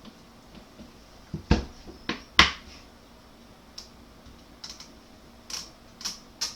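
Sharp clicks and knocks from handling a Ruger 10/22 rifle in a Magpul X-22 stock. Three loud knocks come between about a second and a half and two and a half seconds in, and a run of quicker, evenly spaced clicks follows near the end.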